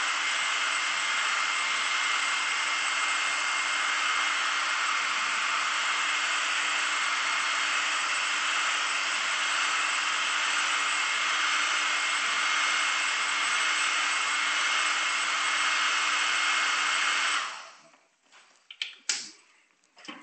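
Handheld hair dryer blowing steadily with a thin high whine, heating a dent in a motorcycle's steel fuel tank. It is switched off abruptly near the end, followed by a few light knocks and clicks.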